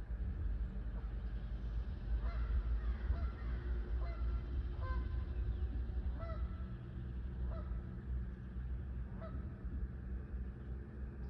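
A bird calling over and over, a string of short pitched calls about one a second, starting about two seconds in and stopping about nine seconds in, over a low steady rumble.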